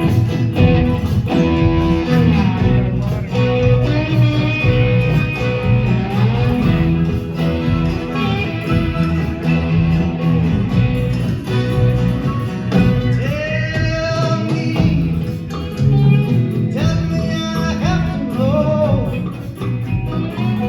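Live band playing the opening of a song: guitars over bass and drums, with a lead melody line that bends in pitch about two-thirds of the way in.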